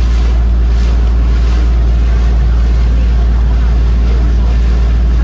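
A small boat's motor running steadily under way: a loud, even low drone.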